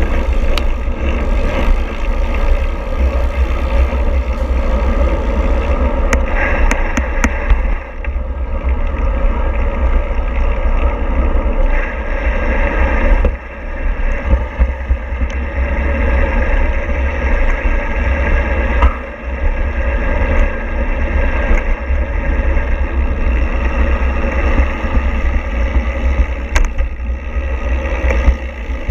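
Steady rumble of a moving vehicle's engine and road noise, heaviest in the low bass, dipping briefly three times.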